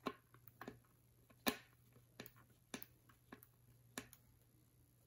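Hand screwdriver driving a screw into 3D-printed plastic parts: a faint series of small, irregular clicks and ticks as the driver tip, screw and plastic panels knock and bite, the loudest about a second and a half in.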